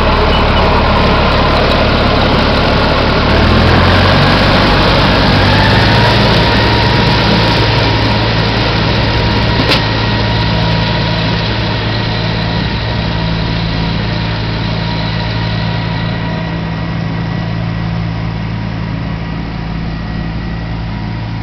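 New Holland compact tractor's diesel engine running while it pulls a rotary mower. The engine picks up speed about three seconds in, then holds steady and grows fainter as the tractor moves away. A single sharp click about ten seconds in.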